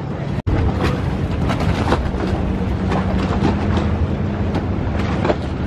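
Outdoor waterside ambience dominated by wind rumbling on the microphone, with a steady low hum for a couple of seconds in the middle and scattered light knocks; the sound drops out for an instant about half a second in.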